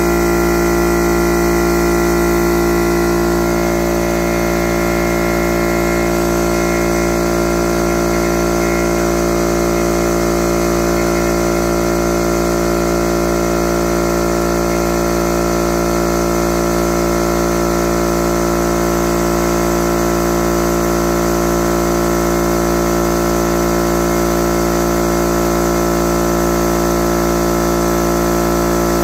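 Husky 8-gallon air compressor's motor and pump running steadily, filling the empty tank with air.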